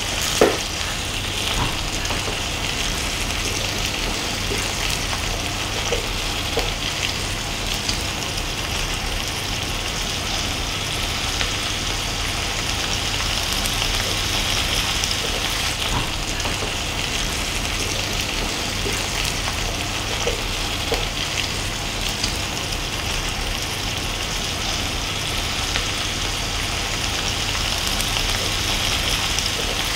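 Skin-on salmon chunks frying in olive oil in a nonstick pan, giving a steady sizzle. Tongs make occasional light clicks as they move the pieces.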